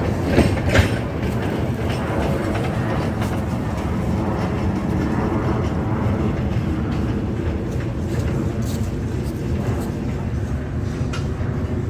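Narrow-gauge MBxd2 diesel railcar's engine idling with a steady low rumble, while a hand-pushed flat trolley rolls along the rails. Two sharp knocks come about half a second in.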